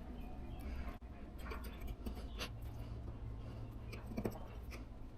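A scraper worked lightly over a car's trunk lid, scraping off leftover adhesive residue in short, faint scratchy strokes.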